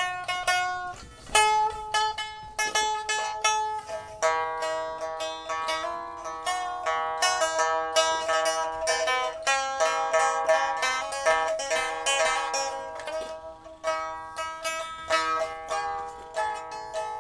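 Instrumental music played on a plucked string instrument, with many notes plucked in quick succession and left to ring into one another.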